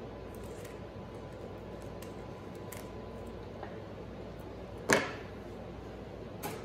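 A knife set down on a wooden tabletop: one sharp clack about five seconds in, with a smaller knock near the end and a few light handling clicks over a faint steady room hum.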